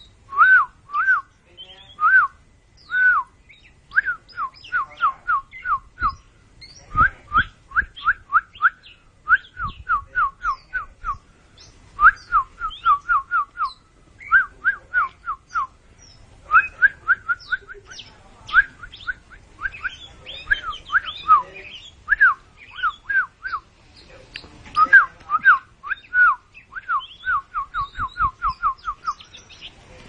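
Caged oriental magpie-robin (kacer) calling in quick runs of short whistled notes, each rising then dropping, with a few higher notes mixed in, while puffed up in its fierce display.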